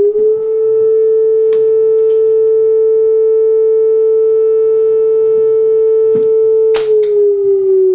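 Electric civil-defence warning siren sounding a loud, steady single-pitch wail during a test of the warning system. Near the end there is a click and its pitch begins to fall as it winds down.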